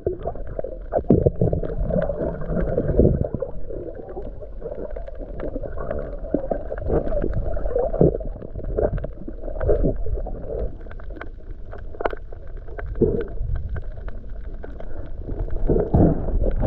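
Muffled underwater sound picked up by a camera in a waterproof housing: low rumbling water movement with scattered knocks and clicks.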